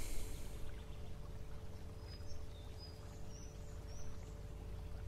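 A deep breath through the nose fades out about half a second in. It leaves quiet garden ambience: a steady faint hum and a few short, high bird chirps in the middle.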